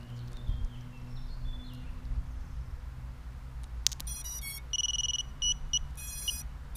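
A click as the battery is plugged into a mini FPV quadcopter about four seconds in, then the BLHeli_S speed controllers' start-up beeps played through the brushless motors: a run of short high tones stepping in pitch, the sign that the ESCs have powered up and armed their start-up sequence.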